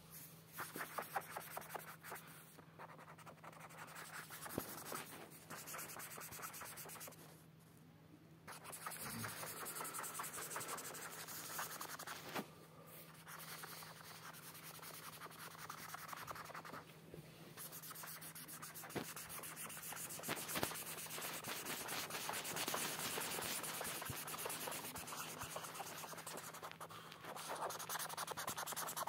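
Felt-tip marker scribbling rapidly back and forth on paper to colour in an area, in runs of quick strokes with brief pauses. A faint steady hum sits underneath.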